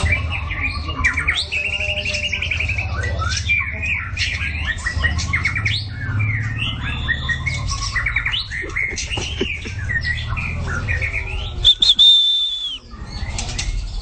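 White-rumped shama singing a continuous run of varied, rapid whistled and chattering phrases, with a loud held high whistle near the end that breaks off suddenly.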